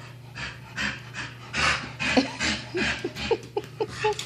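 A dog panting hard and fast in excitement, with short high whines breaking in over the second half.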